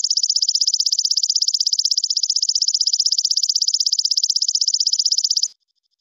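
Belalang kecek (walang kecek) insect calling: a loud, rapid, even train of high, dry chirps, about fifteen a second, that stops abruptly about five and a half seconds in. A much fainter pulsing of the same kind goes on briefly after it.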